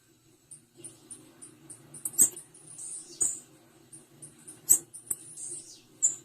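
Female blue-black grassquit (tiziu) calling: repeated short, high-pitched chips, with sharp clicks about two and four and a half seconds in, over a faint low hum.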